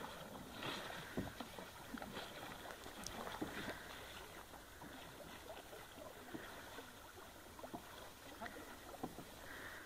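Faint, irregular splashing of water.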